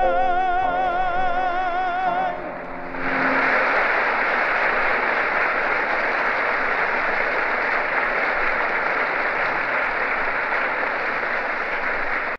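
A male singer holds the last note of a Yiddish song with a wide vibrato over piano, breaking off a little over two seconds in. After a short dip, an audience claps steadily in applause.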